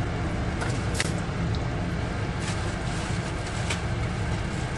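Bacon, tomatoes and onion frying in a pan over a lit gas burner: a steady sizzle over a low rumble, with a few sharp clicks.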